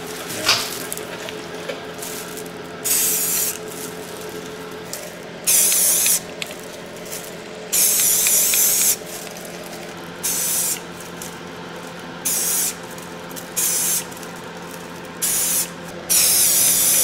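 Rust-Oleum aerosol spray paint can sprayed in short bursts, about eight hisses of half a second to a second each. A steady low hum runs underneath.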